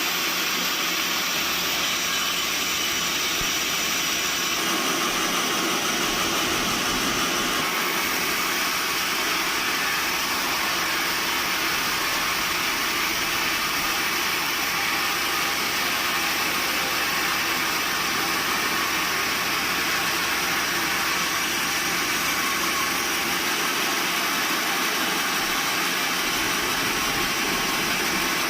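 Sawmill machinery running with a steady, even mechanical noise that shifts slightly in tone a few seconds in.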